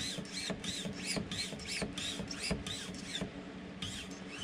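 Hand-pumped vacuum oil extractor squeaking with each plunger stroke, about three strokes a second with a short pause near the end. The pump is drawing black used engine oil out of a Yanmar 2GM diesel through the dipstick tube.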